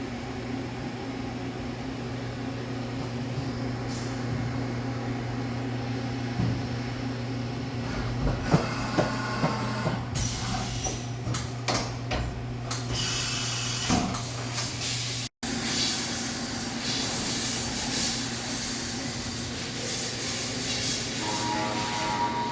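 Fadal VMC 4525 CNC machining center running with a steady hum. Scattered clunks and knocks start about six seconds in, and a loud hiss joins from about ten seconds in.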